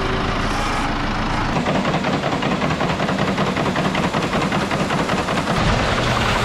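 Grain fanning mill running: a dense, fast mechanical rattle over a steady hum, starting up fuller about a second and a half in.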